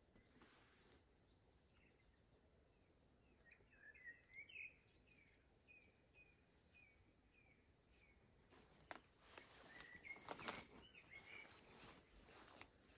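Faint, steady high-pitched insect trilling, typical of crickets in the hills. A few seconds in, a bird calls a quick series of short notes; in the second half, irregular rustles and knocks join in.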